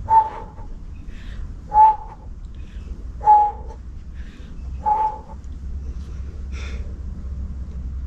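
A dog barking, four single barks about a second and a half apart, then stopping.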